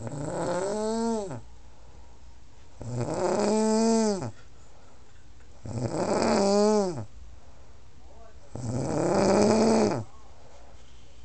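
A sleeping woman snoring hard: four long snores about three seconds apart, each a droning pitch that rises and then falls. The snores sound like someone cranking up a lawn mower.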